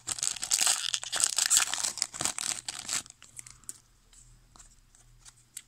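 Foil wrapper of a 1996 Donruss football card pack crinkling and tearing as it is ripped open, for about three seconds. After that the cards are handled, with faint scattered clicks.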